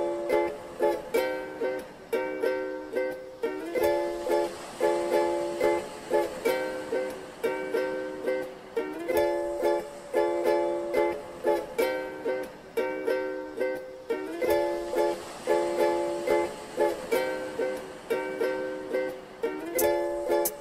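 Background music: ukulele strumming chords in a steady rhythm, about two strums a second.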